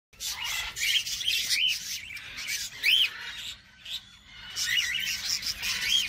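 A flock of budgerigars and cockatiels chattering and chirping in an aviary, with many short chirps that rise and fall in pitch, easing briefly just past the middle.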